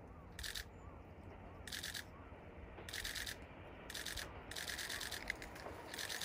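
Camera shutter firing in rapid continuous-shooting runs: six short bursts of quick clicks, each a half second or less, the longest just past the middle.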